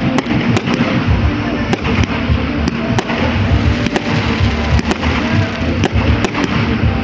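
Fireworks display: aerial firework bursts going off in quick succession, many sharp bangs and crackles a second over a continuous low rumble.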